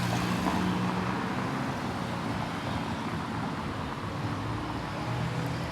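Street traffic: a vehicle's engine hum over road noise, strong in the first second, easing off, and coming back near the end.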